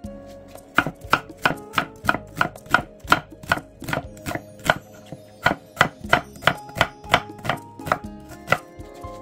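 Chef's knife slicing half an onion into thin strips on an end-grain wooden cutting board: a steady run of cuts, about three a second, each ending in a knock of the blade on the wood. The cutting starts about a second in and stops near the end.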